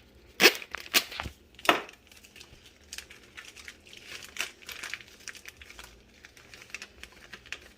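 Plastic bag of shredded coconut crinkling and rustling as it is handled and emptied, with three sharp clicks or knocks in the first two seconds.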